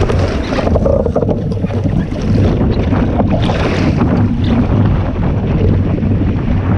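Wind buffeting the microphone on a small sailboat under way, a loud steady rumble, with a few short splashes of water.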